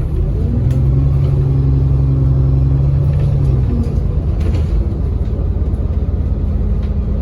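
ADL Enviro400 double-decker bus running: a low engine drone and road rumble, with a strong steady hum from about half a second in that fades out just before four seconds.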